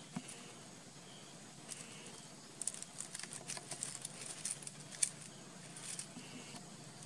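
Dry leaves, twigs and loose stones crackling and rustling under a baby monkey's hands and feet as it scrambles over rocks. The crackles come in a quick run from about two and a half seconds in until about six seconds, with the sharpest one near five seconds.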